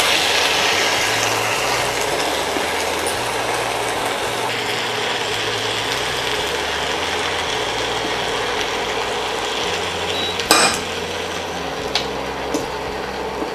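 Chicken wings, potatoes and mixed vegetables sizzling steadily in a frying pan, cooking in the fat rendered from the chicken skin. A sharp clink of a utensil against the pan comes about ten and a half seconds in, with a couple of light ticks after it.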